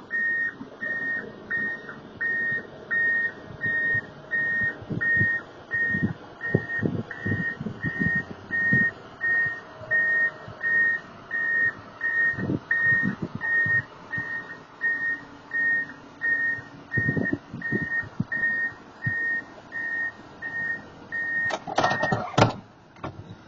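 A wheel loader's reversing alarm beeping steadily at about two beeps a second, over low knocks from the machine. Near the end the beeping stops and a loud crunch of impacts follows as the loader backs into a parked car.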